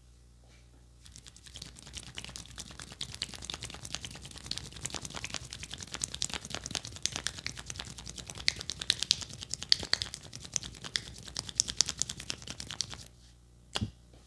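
Rapid, dense scratching and rubbing of hands on hair and scalp during a barber's head massage, a crackly rustle that runs for about twelve seconds and then stops. One sharp click follows near the end.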